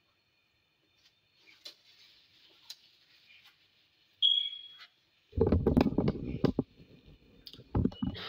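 A few faint clicks and a brief high squeak, then loud, close rubbing and knocking as the recording phone is handled, with a last knock near the end.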